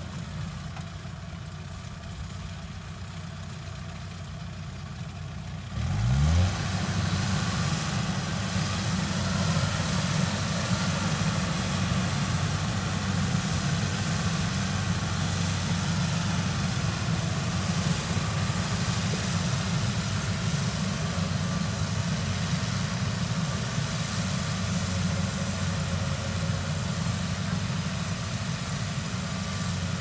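Kubota DC70 Plus rice combine harvester's diesel engine running steadily; about six seconds in it revs up with a quick rise in pitch and then keeps running louder and fuller.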